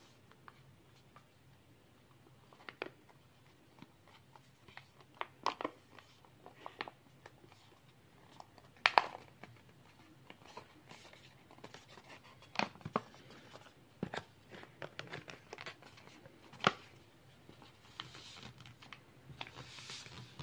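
Folded origami paper crinkling and crackling in the hands as a paper boat is pulled open and shaped: scattered sharp crinkles, the loudest about halfway through, then a soft rustle near the end.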